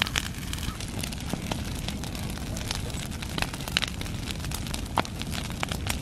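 Brush pile fire of dry branches burning, with many sharp crackles and pops over a steady low rumble.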